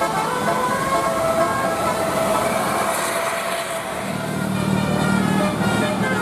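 Basuri multi-tone telolet bus horn sounding fainter melody notes over vehicle noise, with a steady low drone coming in about four seconds in.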